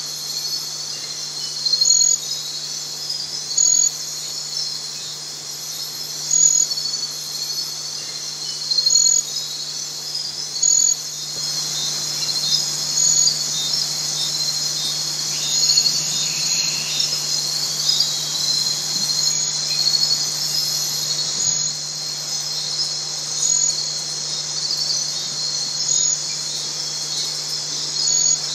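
Night insect chorus: a steady, high-pitched trilling, with a louder chirping note about every two seconds, over a low steady hum.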